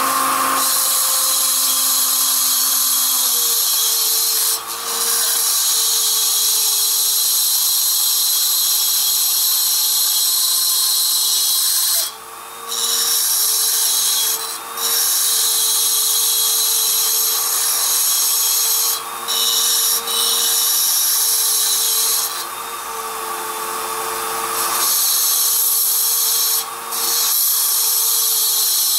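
High-speed pencil grinder with a double-cut carbide burr cutting into a steel chainsaw muffler, enlarging its opening to match a ported exhaust port. A steady high whine under a harsh cutting hiss, and the hiss breaks off for a moment several times as the burr is lifted from the metal.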